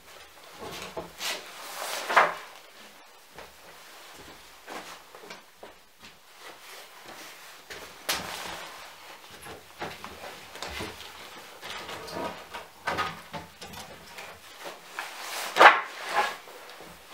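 Old wooden boards knocking and clattering as they are handled and laid onto a stack, in scattered knocks with the loudest clatter near the end.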